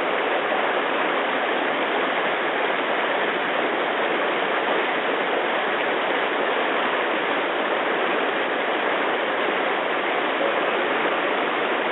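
Rushing river water flowing over rocks: a steady, even rush with no breaks.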